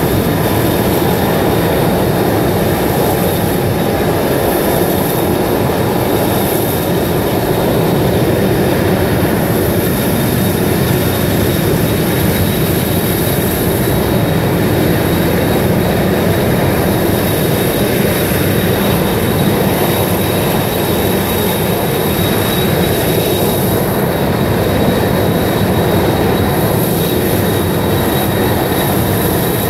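High-pressure steam venting from a burst steam pipe under the street: a loud, steady rushing hiss with a faint high whistle held over it.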